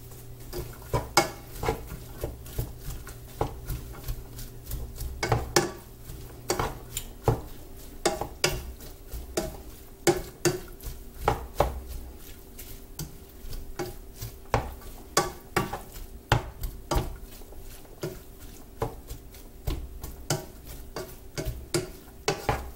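A plastic spatula stirring ground turkey and diced onion in a skillet, scraping and knocking against the pan in quick, irregular clicks.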